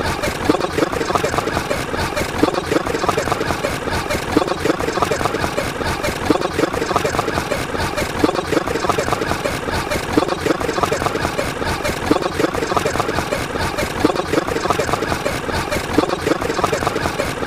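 A dense, unbroken jumble of many overlapping sound clips playing at once, with voices mixed into the din.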